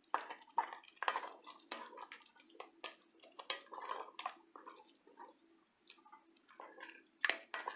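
Wooden spoon stirring thick, creamy chicken pot pie filling in an enamelled pot: wet squelching with irregular small knocks and scrapes of the spoon against the pot.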